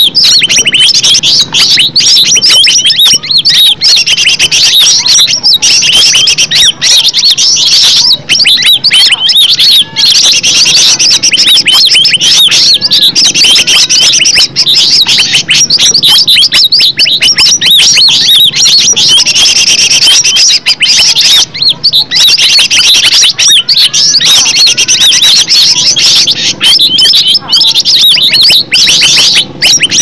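A green leafbird (cucak ijo) singing continuously: a loud, fast, unbroken stream of varied chirps and trills.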